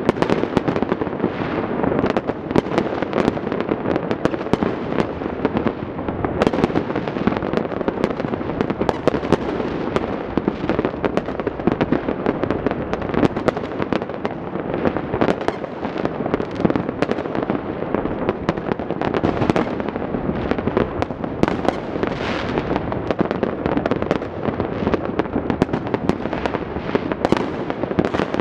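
Many fireworks and firecrackers going off across a city at once: a continuous, dense crackle of overlapping bangs with no pause.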